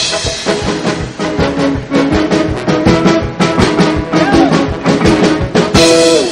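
Loud walk-on music with drums and a steady beat, played as a speaker comes to the stage; it stops near the end.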